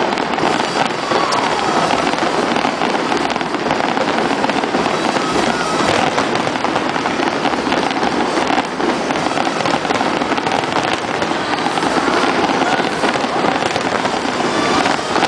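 Aerial firework shells bursting in a dense, continuous barrage, many crackling reports overlapping with no pause.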